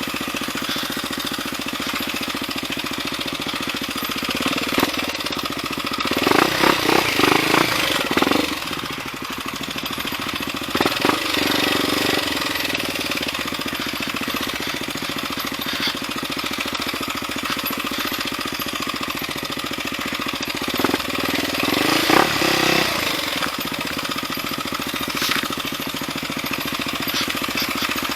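Trail motorcycle engine running with a fast, steady pulse as the bike is ridden. It gets louder and rougher twice, about six seconds in and again about twenty-one seconds in.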